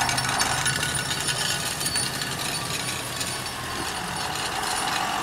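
Farm tractor's engine running low while it carries a wrecked car on its front loader, under a steady rattling and scraping of metal.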